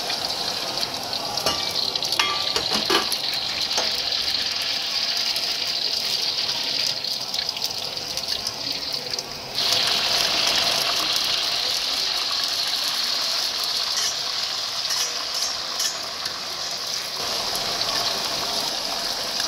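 Raw egg noodles deep-frying in hot oil in a wok: a steady sizzle that gets suddenly louder about halfway through, with a few light clinks about two seconds in.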